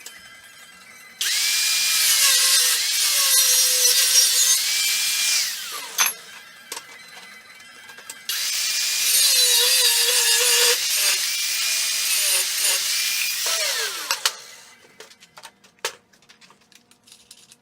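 A handheld power tool run twice, about four and five seconds each: its whine dips as it bites into the work and glides down as it spins down after each run, over a bright, hissing cutting noise. Scattered clicks and knocks follow between and after the runs.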